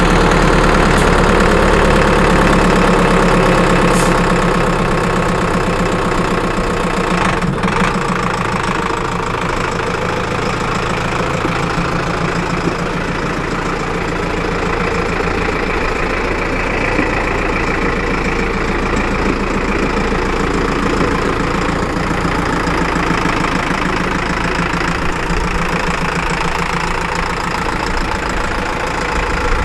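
Zetor Forterra 150 HD tractor's four-cylinder diesel engine idling steadily, freshly started; it is a little louder for the first few seconds, then settles to an even idle.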